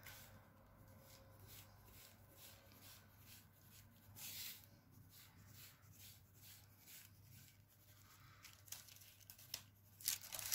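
Faint scratching of a pencil making short strokes on paper, with soft rustling of the pattern paper and a slightly louder rustle about four seconds in.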